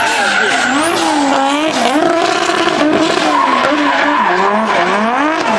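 Nissan Silvia S15 with a 1JZ straight-six, drifting: the engine revs swing up and down again and again as the throttle is worked, over the hiss of sliding tyres.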